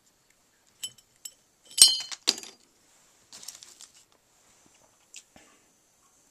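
Glassware clinking: two sharp glass-on-glass strikes about half a second apart, the first ringing briefly, after a couple of light ticks. A short rustle of handling and two faint clicks follow.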